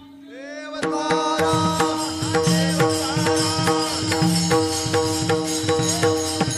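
Varkari kirtan accompaniment with no singing: a harmonium holds one note. About a second in, pakhawaj drum and small hand cymbals (taal) come in, playing a steady, fairly fast rhythm under the harmonium.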